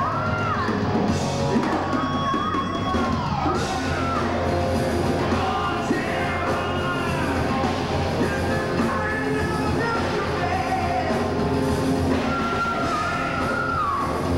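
Heavy metal band playing live: electric guitar, bass and drums with a male singer's vocals over them, holding a long note near the end.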